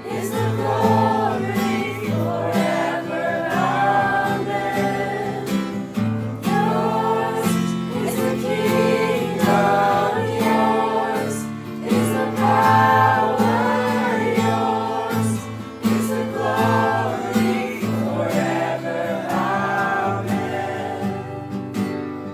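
Worship music: several voices singing together over guitar accompaniment.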